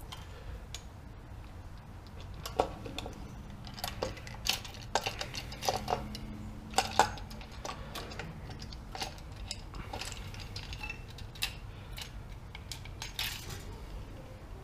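Scattered sharp metallic clinks and clicks as an ATV engine's aluminium valve cover is wiggled loose and lifted off, with its loose bolts and washers knocking about, over a faint low steady hum.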